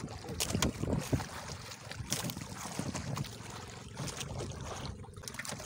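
Wooden outrigger boat under way on open sea: wind buffeting the microphone and water rushing along the hull, with a few sharp hits along the way.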